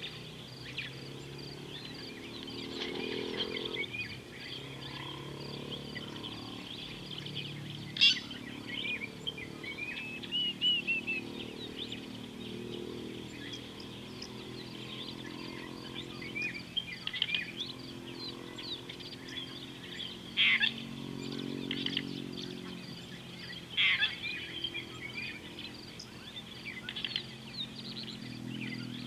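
Wild birds chirping and trilling in the bush, with a few louder calls standing out. Under them runs a low, drawn-out rumbling hum that comes and goes.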